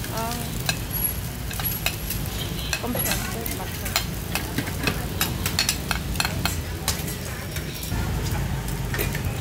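Fried rice with beef and egg sizzling in a wok while a metal spatula stirs and scrapes it, striking the pan in quick, frequent clicks over a steady low rumble.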